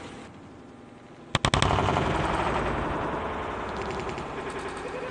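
A quick run of sharp knocks about a second in, then a loud burst of crowd cheering and applause that slowly fades.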